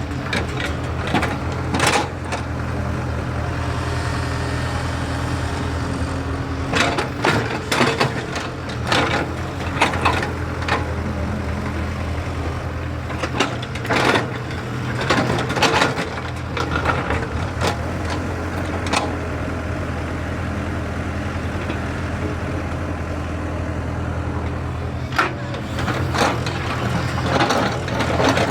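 JCB excavator's diesel engine running steadily, with repeated sharp knocks, cracks and crunching scattered through it, loudest in clusters about a third and halfway through and again near the end.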